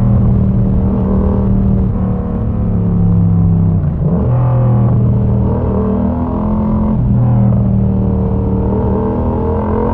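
Yamaha MT-07's parallel-twin engine running loud through an exhaust with its dB killer removed, holding steady revs on the move, with brief dips in revs about two, four and seven seconds in.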